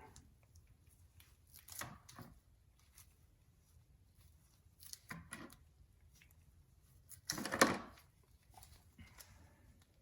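Faint, short rustles and scrapes of fiberglass cloth being handled and laid into wet resin, three times, the loudest about seven and a half seconds in.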